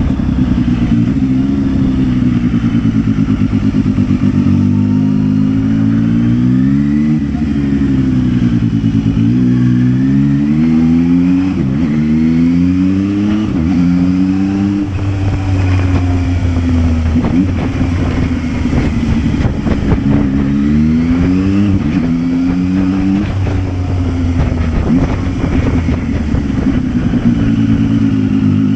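Zontes 703F's three-cylinder engine on its stock exhaust, under way: the engine note climbs and drops again and again as the bike accelerates and shifts up, then swells and eases off with the throttle.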